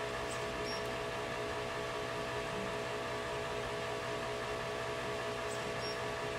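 Steady hum and hiss of running fans, with a few steady tones held throughout and no change.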